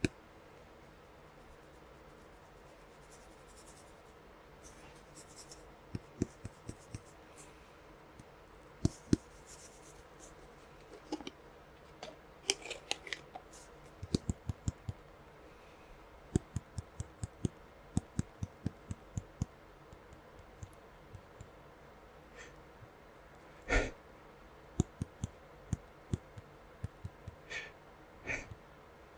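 Scattered sharp clicks and light taps, with a few short sniffs and breaths, from a person trying to bring on a sneeze after sniffing Creole seasoning. The loudest sniffs come about two-thirds of the way in and again near the end.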